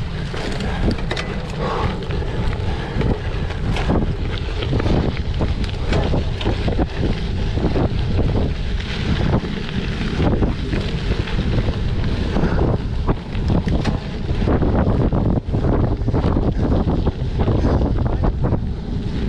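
Wind noise buffeting the microphone of a racing cyclocross rider's camera, over a dense run of short rattles and knocks from the bicycle.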